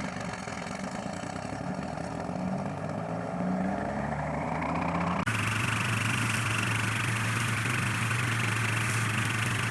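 Engine of a tree-cutting machine running, its pitch wandering up and down. About five seconds in, a sudden cut to another machine running steadily and louder, with a strong hiss over the engine tone.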